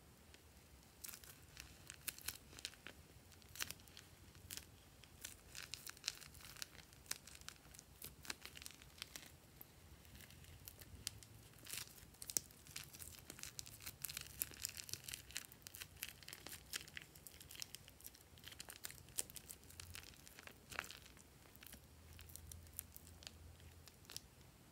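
Foam-bead slime squeezed out of a plastic piping bag onto loose foam beads: a dense run of irregular crackles and crinkles that starts about a second in and thins out near the end.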